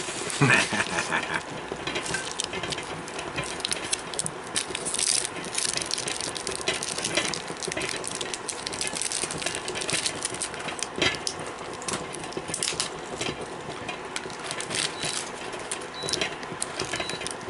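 Crinkling and rustling of Tootsie Roll wrappers being unwrapped by hand, in many short, irregular crackles.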